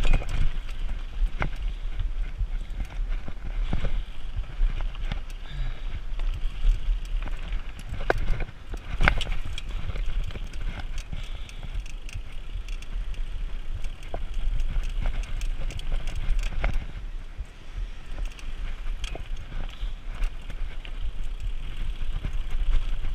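Mountain bike rolling down a rocky, gravelly trail: tyres crunching over loose stones, with frequent irregular clicks and rattles from the bike and a steady low rumble underneath.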